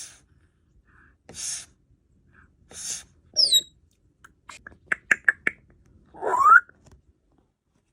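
African grey parrot vocalising: three short, breathy, cough-like bursts about a second and a half apart, then a quick falling whistle. After that comes a rapid run of sharp clicks, and near the end a loud rising whistled squawk.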